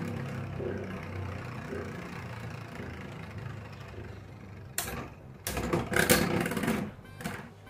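Two Beyblade spinning tops whirring on a plastic stadium floor, the whir slowly fading, then a run of sharp clacks as they collide from about five seconds in, loudest around six seconds.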